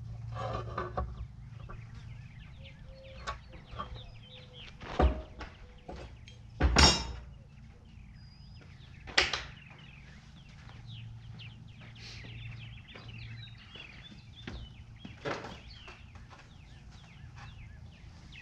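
Birds chirping and calling throughout, with a few sharp knocks and clatters of tools and gear being handled, the loudest about seven seconds in.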